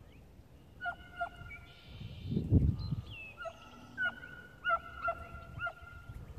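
Hunting dogs baying in the distance while working brush for a rabbit: a run of drawn-out, overlapping bays, several dropping in pitch at the end. A louder rustle comes through about two and a half seconds in.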